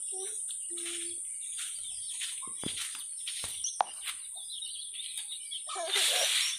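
Chickens clucking and small birds chirping, with a few sharp taps in the middle. Near the end, the loudest sound: a brisk swish of a grass broom sweeping across a packed-earth yard.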